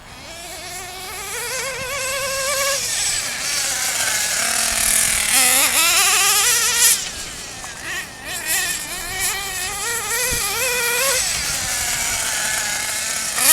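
Small nitro (glow-fuel) RC car engine running at high revs, a buzzing whine whose pitch swoops up and down again and again as the throttle opens and closes. It grows louder over the first couple of seconds.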